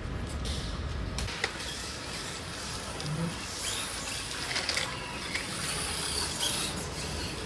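Micro-scale RC crawler driving on loose sand: a small electric motor runs faintly under the hiss of tyres scratching through sand, with a few light ticks.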